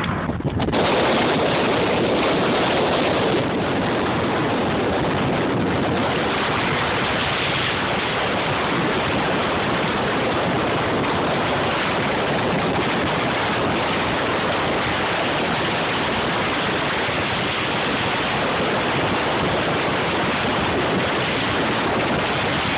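Steady rushing of wind and road noise inside a moving car, starting abruptly about a second in.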